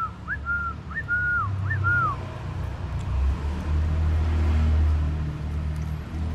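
A person whistling a repeated call to the puppies, three short whistles in the first two seconds, each jumping up and then held and falling away. After that a low rumble, loudest about three to five seconds in.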